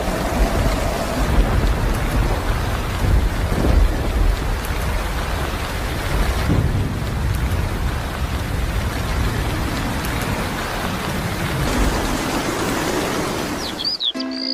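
Rain and thunder: a steady hiss of rainfall over a deep rumble that swells a few times, stopping abruptly near the end.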